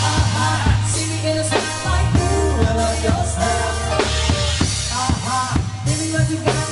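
Live band playing dance music: electronic keyboard over a drum kit with a steady beat and a bass line, with a singer's voice on top.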